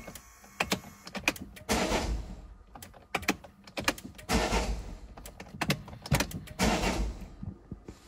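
Start attempt on a Peugeot 5008 that will not crank properly: sharp relay clicks and three short whirring bursts as the starter engages briefly and cuts out instead of turning the engine over.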